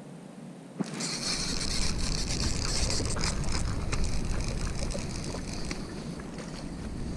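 A hooked bass splashing and thrashing at the water's surface as it is reeled in. The sound starts suddenly about a second in and keeps on as a steady crackling splash mixed with reel and rod handling noise.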